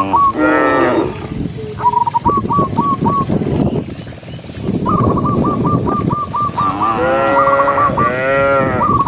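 Cattle mooing: several long calls that bend up and down in pitch, coming thicker near the end, with a quick repeated high warble recurring between them over a rough background noise.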